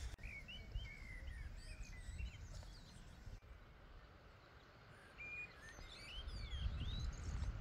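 Songbirds chirping in short, quick calls, in a bout over the first few seconds and another about two-thirds of the way through, over a low background rumble.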